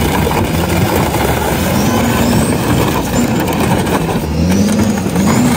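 Remote-controlled monster truck's diesel engine revving up and down again and again, its pitch rising and falling, as the giant tyres climb onto and crush a small pickup truck.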